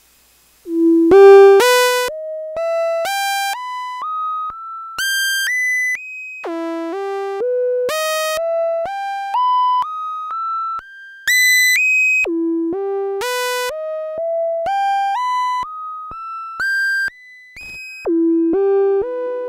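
Cre8Audio East Beast monophonic synthesizer playing a sequenced pattern of short, bright notes that climb step by step from low to high, drop back and climb again, about three full times. It starts about a second in, and a lower held tone joins near the end.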